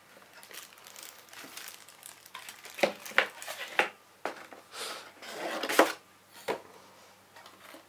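Clear plastic packaging wrap crinkling and rustling as it is handled and pulled from a cardboard box, with light knocks of the cardboard. The crinkles come irregularly, loudest around three and again around five to six seconds in.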